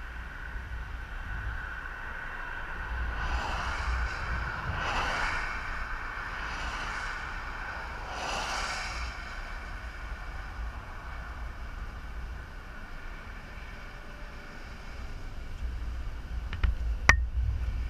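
Interstate traffic passing close by: about four vehicles whoosh past one after another in the first half, over a low rumble of wind buffeting the microphone. A single sharp click comes near the end.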